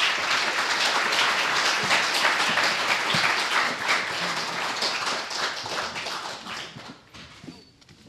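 Audience applauding, many hands clapping at once. The clapping thins out and dies away near the end.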